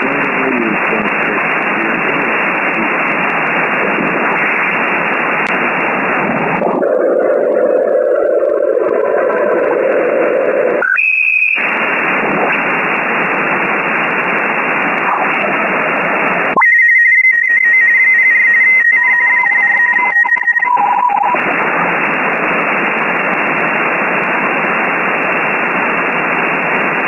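Shortwave static from a software-defined radio receiving the 20-metre amateur band in upper sideband, a steady hiss cut off at the receiver's filter edge. As it is tuned across the band the hiss drops out twice for steady whistling tones: briefly about eleven seconds in, and for about four seconds near the middle, where a high whistle holds and a lower one joins it.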